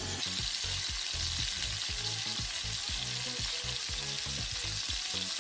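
Marinated boneless chicken pieces sizzling steadily in hot oil in a non-stick frying pan while being stirred and turned with a spatula.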